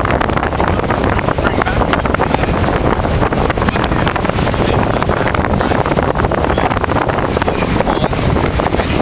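Strong tropical-storm wind buffeting the microphone: a loud, steady rushing noise full of crackles.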